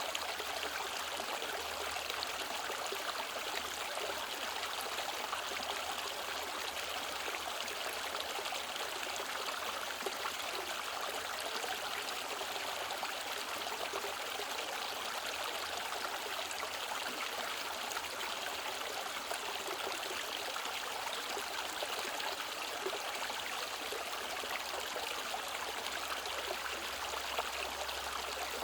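Mountain valley stream running steadily, a continuous rush and trickle of flowing water.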